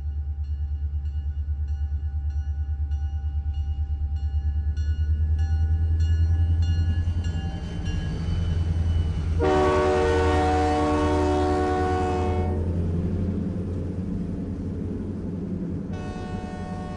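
Diesel locomotive sounds: a steady low engine rumble with a bell ringing about three times a second, then a long multi-note horn blast of about three seconds midway, and the horn sounding again near the end.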